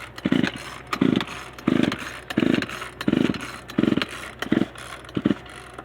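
Poulan Pro two-stroke chainsaw being pull-started: about eight quick, evenly spaced yanks on the recoil starter cord, each a short whirring rasp as the engine is cranked. It does not catch.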